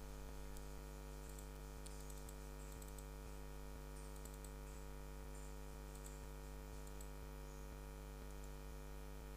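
Steady electrical hum, with faint, irregular computer mouse clicks scattered through it.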